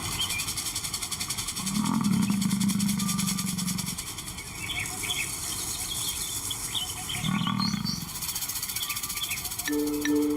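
African lion giving two low calls, a longer one about two seconds in and a shorter one about seven seconds in, over a steady pulsing high drone with small chirps. Music comes in near the end.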